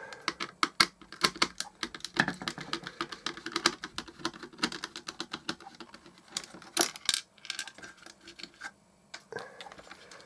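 Small screw being turned out and plastic clock-radio case parts being handled: rapid, irregular clicks and small knocks that thin out after about six seconds, with a couple of louder knocks about seven seconds in.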